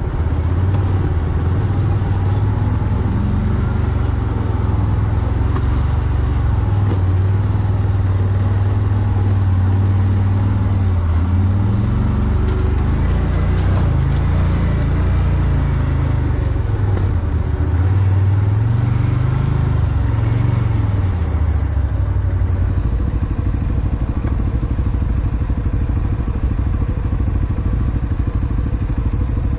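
ATV engine running at low speed on a rough trail, revving up and down a few times around the middle, then settling back to a steady low rumble.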